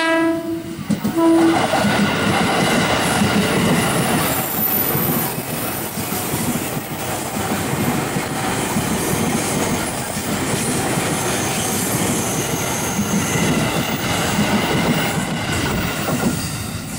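JR 205 series electric commuter train sounding its horn: a blast that ends just after the start and a short toot about a second in. The train then runs close past on the rails, a loud steady rumble of wheels and running gear that fades near the end.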